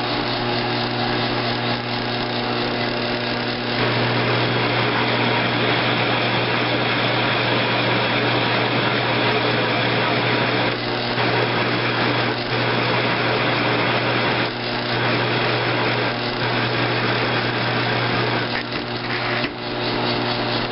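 Grizzly G1007 mill-drill running with its spindle turning, taking a shallow recut on a carburetor's compensating air valve seat. A steady motor hum that gets louder about four seconds in and shuts off near the end.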